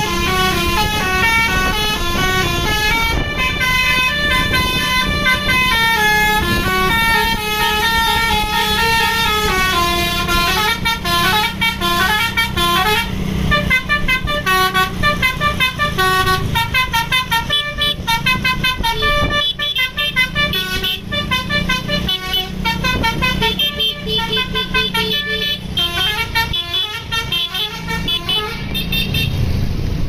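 Bus telolet horn (a basuri multi-tone horn) playing a fast melody of stepping tones on and on, over the bus engine running underneath.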